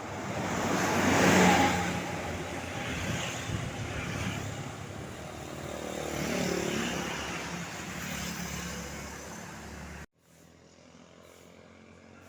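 Road vehicles passing close by as a rushing swell of engine and tyre noise: the loudest passes about a second and a half in, and a second, weaker one comes around six seconds. The sound cuts off abruptly at about ten seconds.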